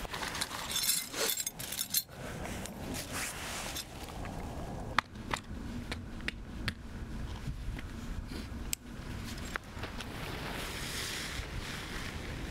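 Tent being pitched: soft rustling, then from about five seconds in a handful of sharp, irregular metallic clicks and clinks of the tent's poles and stakes being fitted.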